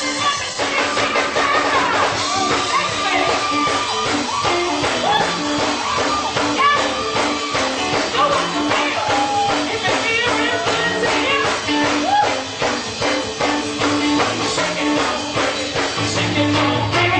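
Live soul band playing loud and steady: drums, bass and electric guitar behind a singer. It is heard through a camera phone's microphone, which cuts off the top end.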